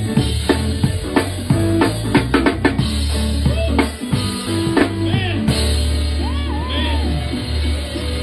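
A live soul band playing: a drum kit hitting snare and bass drum in a steady groove over a sustained bass line, with a sliding lead line over the middle.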